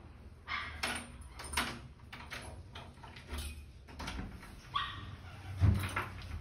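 A dog barking a few short times, among knocks and rustling. A dull thump about five and a half seconds in is the loudest sound.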